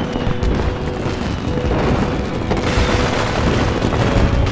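Fireworks bursting and crackling, with deep booms, over music with held notes. The tail of a falling whistle fades out just after the start.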